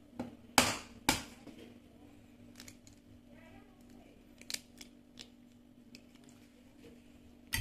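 Goose egg knocked twice against a hard edge to crack its shell, two sharp knocks about half a second apart, followed by a few faint ticks as the shell is pulled apart over a plate.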